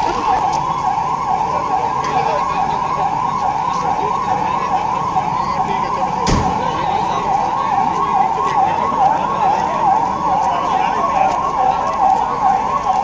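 Electronic siren sounding a rapid yelp, rising and falling about three times a second, as the emergency warning in a police mock drill. A single sharp knock sounds about six seconds in.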